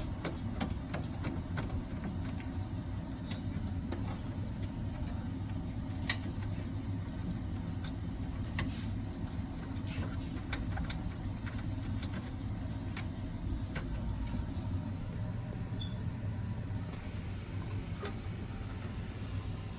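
A steady low hum with scattered light clicks and taps, and one sharper click about six seconds in.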